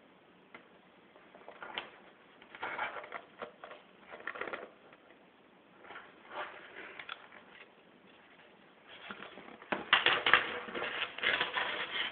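A small fabric cosmetic bag being handled and turned over in the hand: irregular rustling and scraping, loudest near the end.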